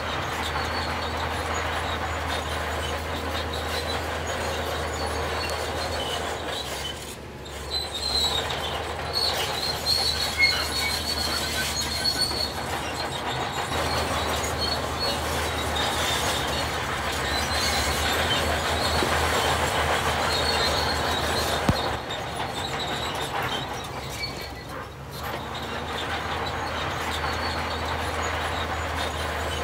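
Heavy diesel machinery running steadily under load, with high metal-on-metal squealing and clanking from its running gear. The squeal is strongest about a third of the way in, and there are sharp knocks near 10 and 22 seconds.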